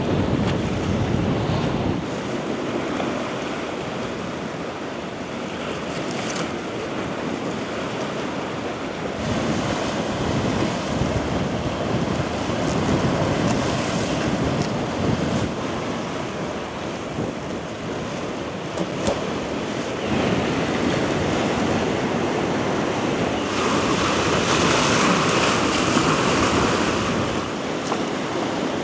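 Sea surf washing steadily onto the shore, rising and falling in slow swells, with wind buffeting the microphone. Near the end a brighter hiss swells up for a few seconds.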